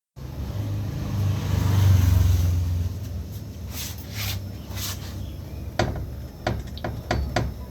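A low mechanical hum for about three seconds, then a few short hissing bursts, then a run of quick clunks, about two to three a second, from about six seconds in: suspension parts knocking through their play on a Fiat with a worn control arm.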